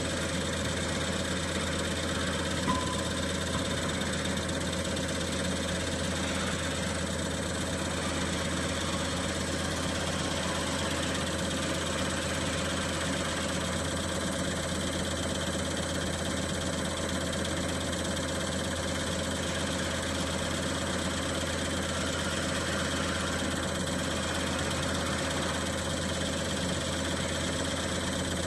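CR708 common rail injector test bench running a test on a Bosch injector, with rail pressure held at about 1600 bar. It makes a steady mechanical hum with a few constant tones over it, and there is a single faint tick about two and a half seconds in.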